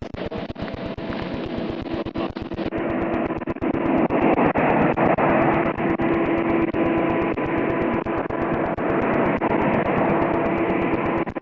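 A vehicle driving at a steady speed: engine and road noise with a steady hum, growing louder about four seconds in.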